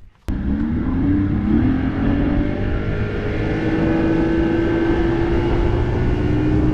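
Bass boat's outboard motor running at speed over a steady rushing noise. It starts abruptly a moment in, its pitch climbs over the first second or two, then holds steady.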